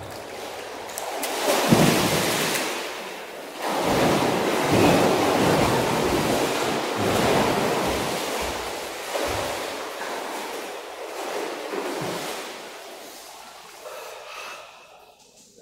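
Pool water splashing and sloshing close to the microphone, a rushing noise in irregular surges that fades away near the end.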